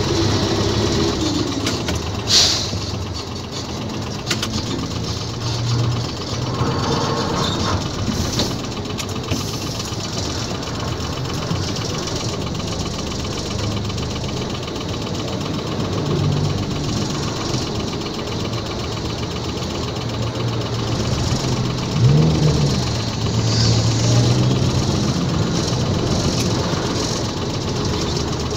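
Isuzu GXZ tractor unit's diesel engine running, heard from inside the cab while the truck drives slowly through traffic, its low note shifting as it pulls and slows. There is a sharp knock about two seconds in, and a short rise in engine pitch about three-quarters of the way through.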